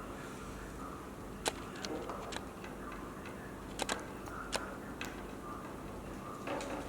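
A handful of short, sharp light clicks and taps from small parts and tools being handled during the repair of an LED display module, spread over a few seconds. A steady low hum lies underneath.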